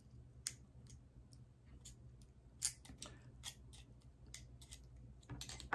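Faint, irregular small metal clicks and snips of pliers twisting a wire onto a bassoon reed blank, about a dozen scattered through, one louder click near the middle and a cluster near the end.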